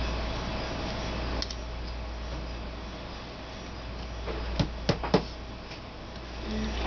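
Steady hiss and low hum in the background, with a faint click about a second and a half in and then three sharp taps close together about halfway through, from paper cut-out pieces being handled and set down on a cutting mat.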